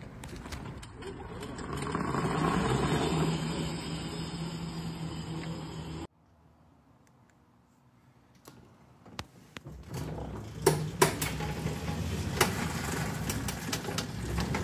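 Electric-converted Yerf-Dog Spiderbox go-kart driving: a steady electric drive hum with chain and tyre noise, swelling about two seconds in and cutting off suddenly at about six seconds. After a short quiet there are several sharp clicks and knocks, then the same drive hum returns as the kart rolls off.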